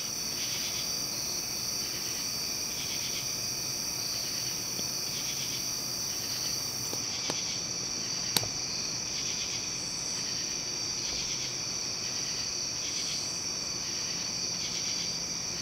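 Insects chirping: a steady high trill with a pulsing chirp about once a second. Two small clicks come about a second apart near the middle.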